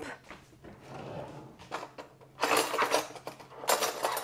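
Off-screen handling noises: a few light clicks, then two short scraping, clattering bursts about two and a half and three and a half seconds in.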